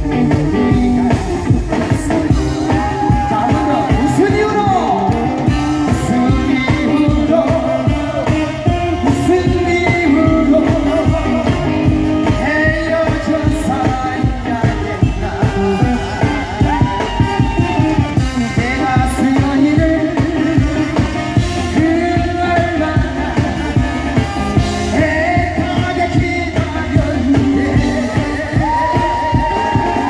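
A man singing a song live into a handheld microphone over amplified instrumental accompaniment with a steady beat.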